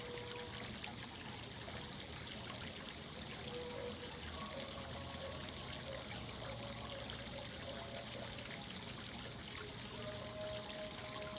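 Steady pouring, trickling water, with faint short held tones now and then behind it.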